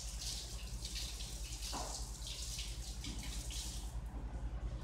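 Water running and splashing in irregular spurts, with a low hum underneath.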